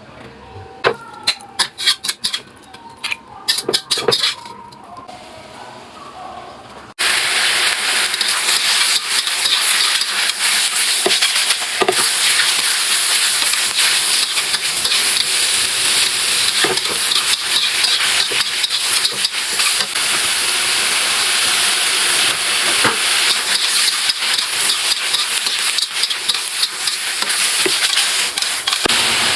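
A few clicks and knocks of cooking utensils, then about seven seconds in a loud, steady sizzle starts abruptly as food goes into hot oil in a pan and is stir-fried.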